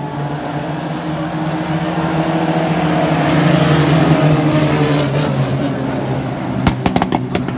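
A pack of pickup-truck race cars running past on an asphalt oval, several engines at once, the sound swelling to its loudest about halfway through as they go by and then easing off. A quick run of sharp clicks near the end.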